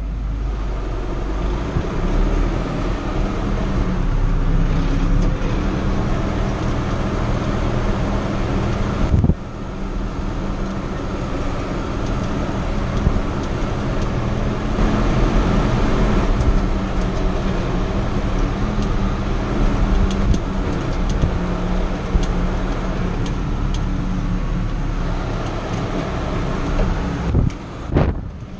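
Fiatagri 88-94 tractor's 3.9-litre turbocharged diesel engine running steadily under way, heard from inside the cab. Its sound shifts abruptly about nine seconds in, and a few sharp knocks come near the end.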